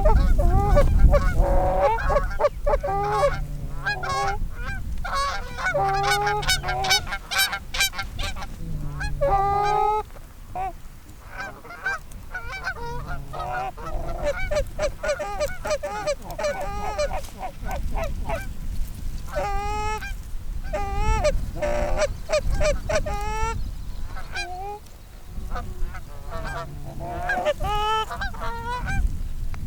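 Canada geese honking and clucking, many short calls in quick succession, easing off briefly twice.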